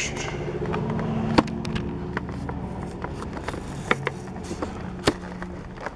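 Collector's card being worked out of a blister-card action-figure package: scattered plastic clicks and crackles over a steady low hum, with sharp snaps about a second and a half in and again about five seconds in.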